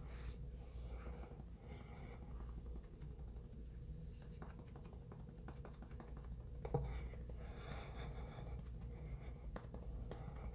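Soft handling sounds of a makeup sponge being dabbed on the face and hands working at a satin bonnet: light taps and faint rustling, with one sharper knock about two-thirds of the way in, over a low steady hum.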